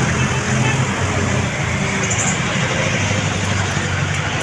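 Steady road traffic noise on a busy street: the low hum of passing vehicle engines, including a jeepney, with continuous tyre and road rush.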